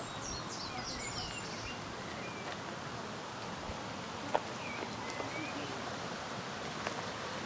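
Small birds chirping in short, high calls, loosest in the first two seconds and again a few seconds later, over a steady outdoor hiss, with one sharp click about four seconds in.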